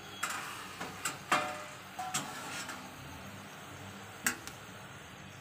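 Steel spoon clinking and scraping against a metal kadai while stirring mustard greens: about six short metallic knocks, spread unevenly, over a low steady hiss.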